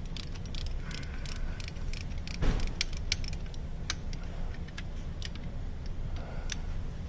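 Irregular metallic clicks and clinks of a deep socket and flex ratchet unscrewing a reverse light switch from a manual transmission, with one louder knock about two and a half seconds in. The switch's threads carry locking compound, so it turns stiffly.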